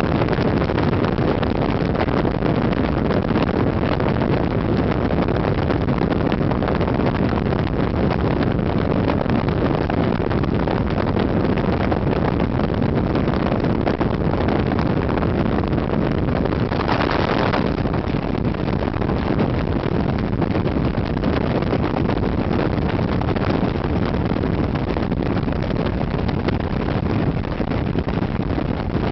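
Race car limousine at speed on a track: steady engine drone and road noise under heavy wind rush on a microphone mounted outside the body. A brief brighter hiss comes a little past halfway.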